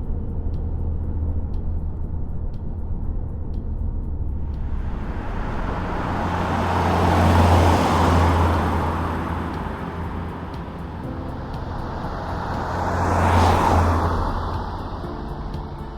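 Nissan Qashqai I 1.6 petrol car driving past twice: each pass is a rising and falling rush of engine and tyre noise, the first peaking about seven seconds in and the second about thirteen seconds in, over a steady low hum.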